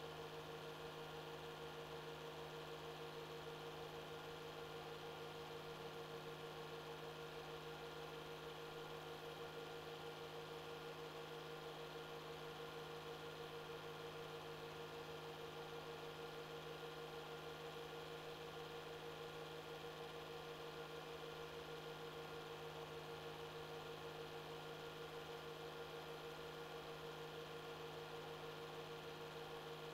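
Faint steady electrical hum over a low hiss, with nothing else: the background noise of a silent film transfer.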